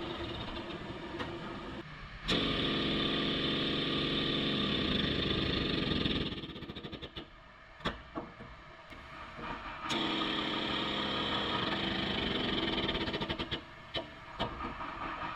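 Self-piercing rivet gun pressing rivets into the aluminium bedside: two runs of about four seconds each, a steady pitched hum that starts suddenly and cuts off, with a few sharp clicks of the tool between and after them.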